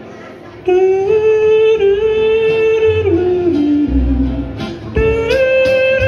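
A western swing band playing live. Starting about a second in, a male voice yodels long, sliding wordless notes that break upward near the end, over steel guitar, upright bass, acoustic guitar and drums.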